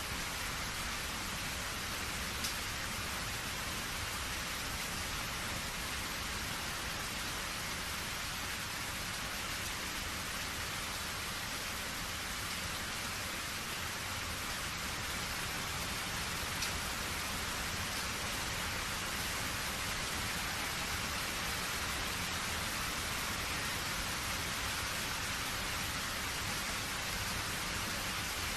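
Steady rain falling, an even hiss with two sharp drop ticks standing out.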